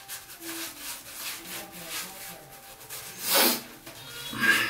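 Synthetic shaving brush swirled over a lathered face, the bristles rubbing and swishing through the wet lather in quick repeated strokes. One louder stroke comes about three and a half seconds in.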